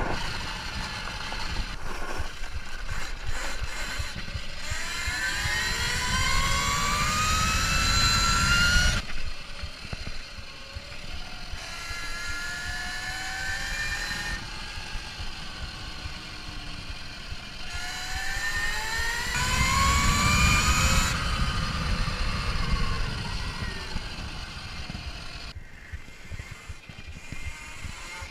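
Kuberg Ranger 14 kW electric motorbike under way. Its motor whine climbs in pitch twice as it accelerates, about four seconds in and again near twenty seconds, and stops abruptly each time the throttle is released. Underneath is a low rumble of tyres and wind.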